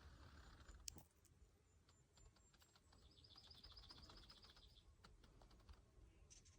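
Near silence, with a faint bird trill, a quick run of repeated high notes, from about three seconds in until nearly five. There is one small click about a second in.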